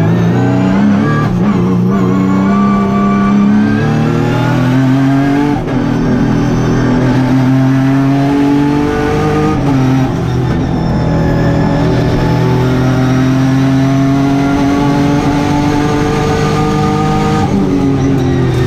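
Turbocharged Hyundai Genesis race car's engine under hard acceleration, its pitch climbing and then dropping back at about six and ten seconds in and again near the end, as on gear changes or lifts for corners.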